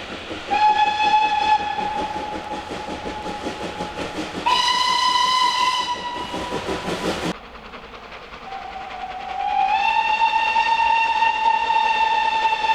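Steam locomotive whistles blown in turn, each a single note. A long whistle starts about half a second in over the regular exhaust beat of the working engine. It gives way to a higher, hissier blast that cuts off suddenly about seven seconds in. Then another long steady whistle, rising slightly in pitch as it opens, begins about eight and a half seconds in.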